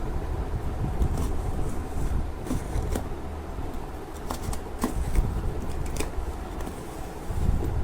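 Shipping packaging being handled and opened by hand: irregular rustling and crinkling with small clicks, over a steady low hum.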